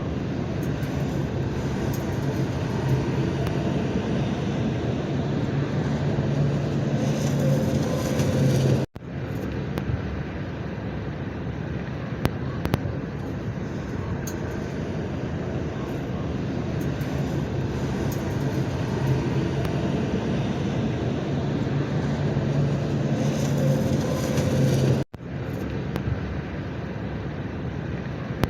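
Diesel engine of a bulldozer running steadily under load, swelling louder twice. Each swell ends in a sudden brief cutout, about nine seconds in and again near the end.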